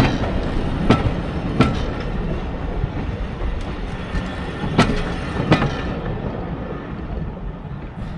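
A passing train's wheels clacking over rail joints: sharp clacks in pairs over a steady rumble that fades away near the end.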